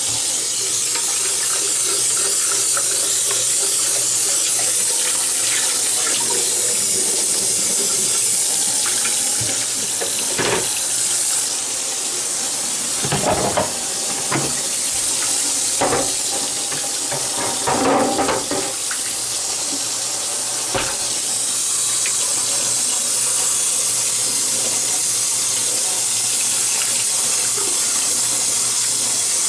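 Tap water running steadily into a sink. From about ten seconds in, for about ten seconds, there are several short knocks and clunks of something being handled in the water.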